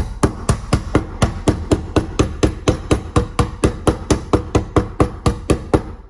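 Claw hammer tapping the lid of a metal paint can to seat it shut: a steady run of sharp strikes, about four a second.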